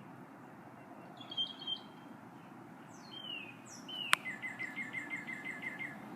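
A wild songbird calling: a short call, then a couple of down-slurred notes, then a quick run of repeated notes at about five a second. A single sharp click, the loudest sound, comes just after the slurred notes.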